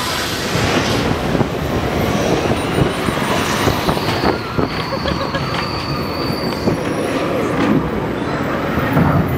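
Test Track ride vehicle running along its track through a dark indoor section: a steady rumble of wheels and track with scattered clatters, and a thin high tone in the middle.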